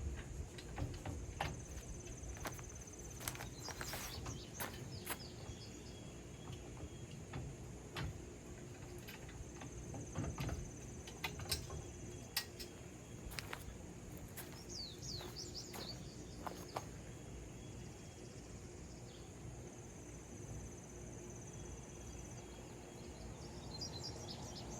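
Scattered clicks and knocks of the metal kayak rack being handled as it is folded down, over outdoor ambience: an insect's steady high buzz that comes and goes, and a few short bird chirps.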